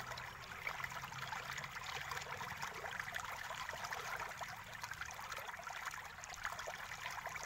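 Steady low hiss with faint small clicks and ticks of screws being unscrewed from a netbook's plastic bottom case with a small screwdriver.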